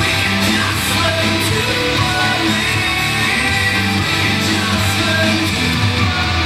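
Rock music with guitar, playing steadily and loud.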